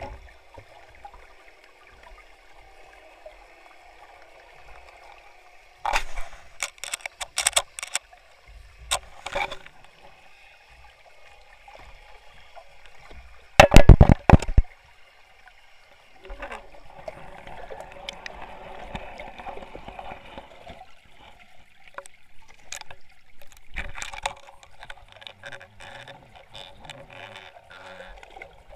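Muffled underwater sound picked up by a submerged camera beside a fishing rig: a faint steady murky noise broken by scattered clicks and knocks, with a cluster about six to eight seconds in and the loudest rattling knocks about fourteen seconds in, as the fishing line, hook and swivel touch the camera.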